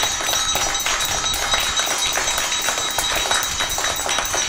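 Many children clapping fast and unevenly, with a steady metallic ringing from a hand bell and a metal plate being struck.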